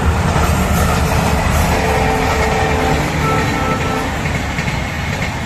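Passenger train running along the track beside the road, a steady low rumble of wheels and coaches, heard from a moving motorcycle.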